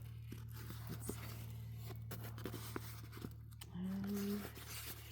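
Light handling noises as a diamond painting kit is unpacked: scattered small clicks and scraping, over a steady low hum. About four seconds in, a short hummed "mm" from the person handling it.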